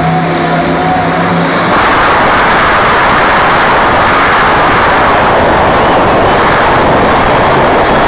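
Monster truck engine running loud, heard through a phone's microphone, growing louder and rougher about two seconds in and staying at full volume.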